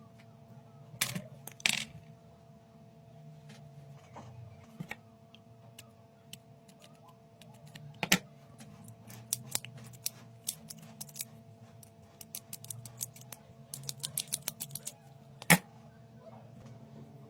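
Small objects being handled: scattered sharp clicks and knocks, a quick run of light ticks near the end and one louder knock just after it, over a faint steady hum.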